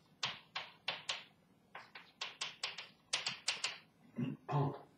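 Chalk tapping and scraping on a blackboard while words are written: a quick run of sharp taps, about four a second, that stops shortly before the end.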